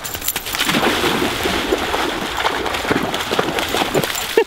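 Yellow Labrador puppy running through shallow swamp water, her legs kicking up a continuous churning splash that starts about half a second in and stops just before the end.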